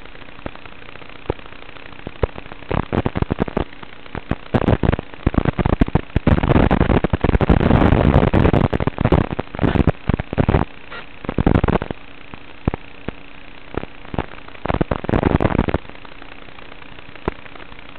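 Crackling, hissing static from an analog FPV video link's audio channel, over a faint steady hum. It comes in irregular bursts that are thickest from about six to twelve seconds in, with another burst near the end: the noise of the analog signal breaking up.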